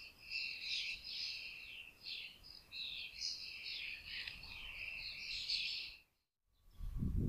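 A flock of small birds chirping continuously in a dense chatter of short, high calls. About six seconds in, the sound cuts out for a moment, then a low rumble with a few thumps follows.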